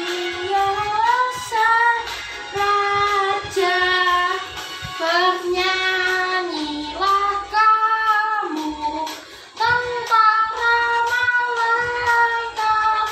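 Children singing a song, the melody moving in held notes.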